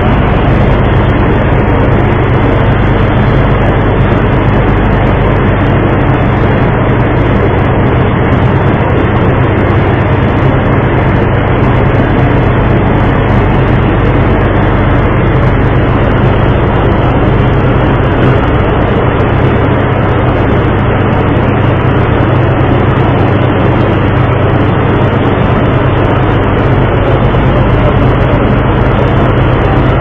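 A ship's engine running steadily with a loud low drone, mixed with a constant rushing noise, heard from the deck of the vessel under way.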